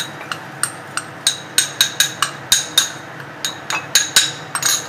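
A metal spoon clinking against a cup while tablespoons of sugar are spooned in for beaten coffee. About fifteen quick, uneven clinks, each with a short ring.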